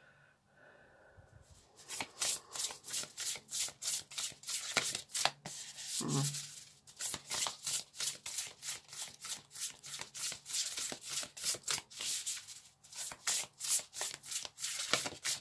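An oracle card deck being shuffled by hand: a rapid run of soft card-on-card strokes, about three to four a second, beginning about two seconds in and continuing steadily.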